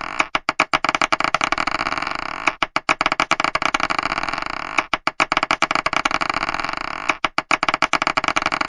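Marbles clattering four times, each a burst of sharp clicks about two seconds apart that runs into a dense rattle fading away.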